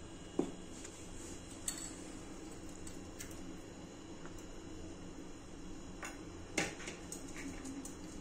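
A handful of metal clinks and knocks as wet ginger-onion paste is scraped and tipped out of a steel mixer-grinder jar into a small metal strainer. The loudest knock comes a little past the middle.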